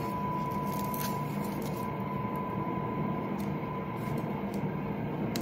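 Cosori air fryer oven running steadily, a continuous hum with a thin high tone, with a few faint crackles of a paper cake case being peeled.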